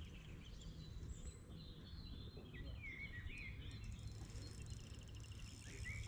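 Outdoor ambience: a steady low rumble of wind on the microphone with small birds chirping and calling intermittently over it.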